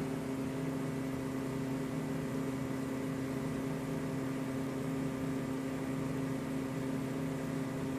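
Steady machine hum of a running 3D printer and the fan on its enclosure, a few constant tones over an even whirr, unchanging throughout.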